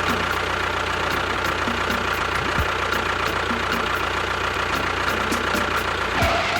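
Small motor of a DIY miniature tractor or bulldozer running steadily, with a constant high whine over a low hum.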